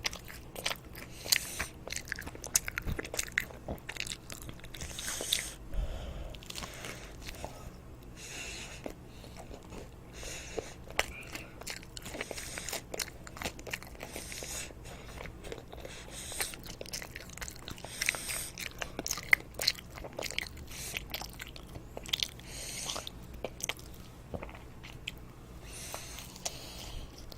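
A child eating toast close to the microphone: crisp bites and crunching chews with many small mouth clicks throughout.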